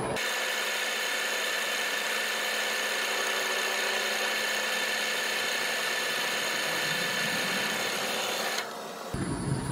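A metal lathe turning a stainless steel bar at about 450 RPM while a center drill cuts a starter hole in its end, with cutting oil applied. It makes a steady hiss with several high, steady tones, then dips briefly near the end.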